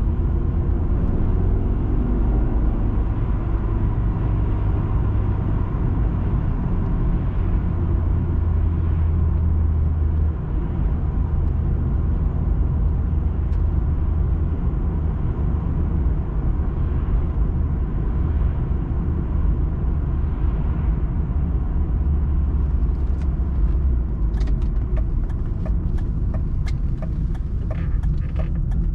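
A car driving, heard through a dashcam: a steady low rumble of engine and road noise. Near the end comes a run of light, sharp clicks.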